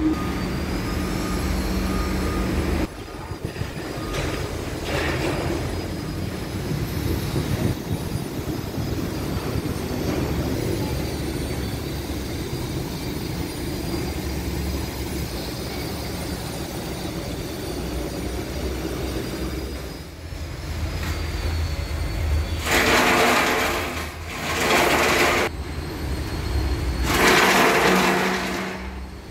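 Heavy diesel vehicle engine running with a steady low rumble, with two loud bursts of rushing noise near the end, each a second or two long.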